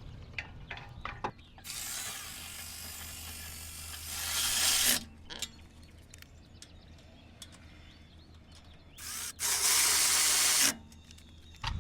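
A ratchet snugging up the rear brake caliper bolts. A few light clicks come first, then two runs of fast ratcheting, one of about three seconds that gets louder near its end and one of about a second and a half.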